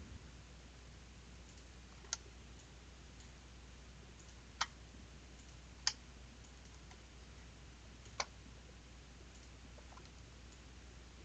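Computer mouse clicking: four sharp single clicks, irregularly spaced a second or more apart, with a few fainter ticks, over a faint steady hum.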